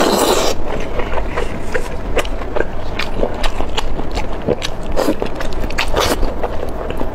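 Close-up eating sounds: a wet slurp at the start, then irregular lip smacks, sucking and chewing clicks as spicy chili-oil-coated food is bitten and sucked.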